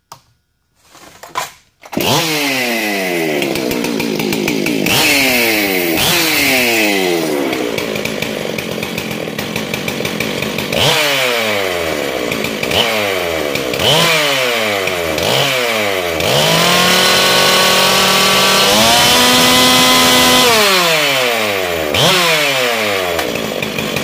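Modified Husqvarna 385 XP two-stroke chainsaw, its cylinder decked for higher compression and fitted with a high-performance exhaust and coil, starting about two seconds in and then revved again and again, each rev falling back toward idle. Past the middle it is held wide open for about four seconds, stepping up once in pitch, to right at 15,000 rpm.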